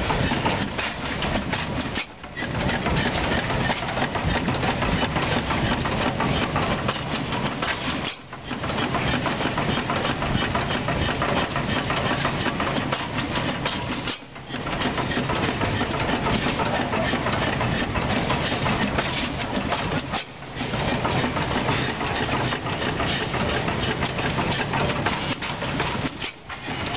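Old stationary gas engines running steadily, a continuous mechanical chugging with a low hum. The sound dips briefly about every six seconds.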